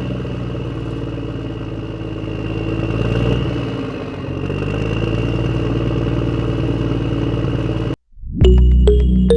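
Tractor engine running steadily, a dubbed sound effect, briefly louder about three seconds in. It cuts off suddenly near the end and background music begins.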